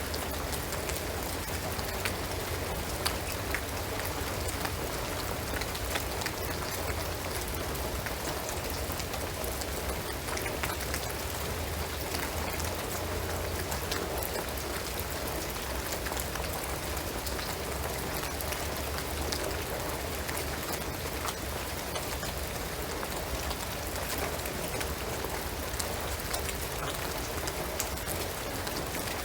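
Steady rain falling on a shingled roof and pine trees, individual drops heard as scattered clicks over an even hiss, with a low steady rumble underneath.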